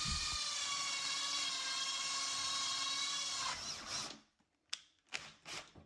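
Power drill running at a steady speed, then winding down when the trigger is released after about three and a half seconds, followed by a few short clicks.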